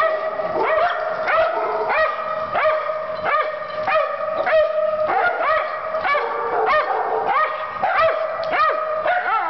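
A puggle and other small dogs vocalizing nonstop in rough play: quick high yips and barks, a few each second, over long drawn-out whining, howling notes.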